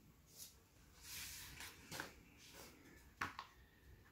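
Faint rustling of paper-backed decal sheets being handled and shuffled, with a short light click about three seconds in.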